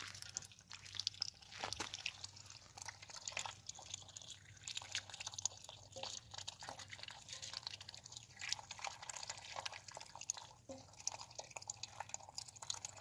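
Black domestic duck dabbling its bill in a pan of wet food: a quick, irregular run of wet clicks.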